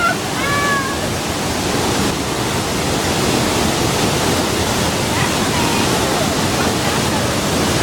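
Waterfall's falling water making a loud, steady rush, with a brief voice calling out in the first second.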